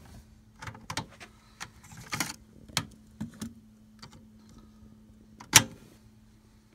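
Mechanical clicks and plastic rattles from a 1970s Sony TC-K15 cassette deck's piano-key transport as it is stopped and ejected and the cassette is taken out of the open door, then one sharp louder click about five and a half seconds in as the cassette door is pushed shut. A faint steady hum sits underneath.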